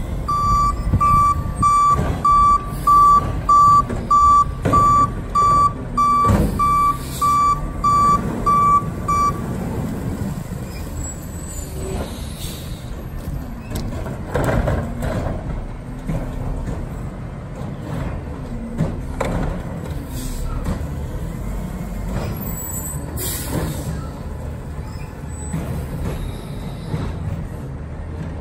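CNG garbage truck with a Heil body, its reverse alarm beeping about three times every two seconds for the first nine seconds while the engine runs. The engine keeps running after the beeping stops, with a couple of short air-brake hisses in the second half.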